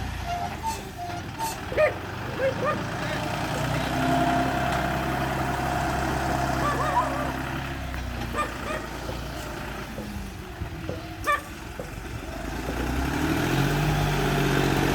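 Bulldozer's diesel engine running steadily, easing off about two-thirds of the way through and building again near the end. Short high chirps and a few sharp clicks sound over it.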